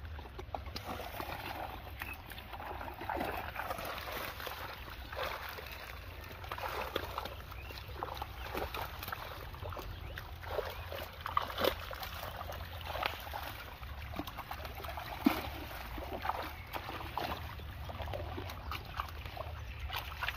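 Shallow pond water splashing and dripping in many small, irregular splashes.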